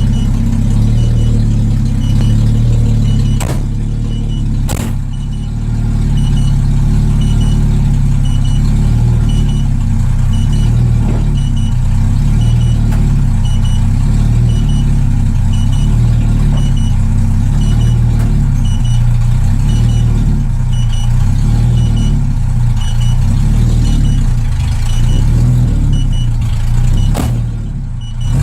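Jaguar XJ6 Series 1's straight-six engine running with no exhaust system fitted: a loud, steady, unmuffled drone. Two sharp clicks come through about three and five seconds in.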